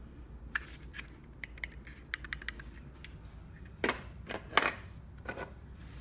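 Plastic garage door opener remotes handled and turned over in the hand: scattered light clicks and scrapes, with the loudest knocks a little past the middle.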